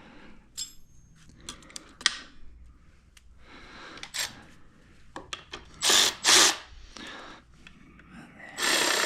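Small metal clicks and knocks of parts being handled, then a power drill/driver running in two short bursts about six seconds in and starting a longer steady run near the end, driving the blinker mounting bolts.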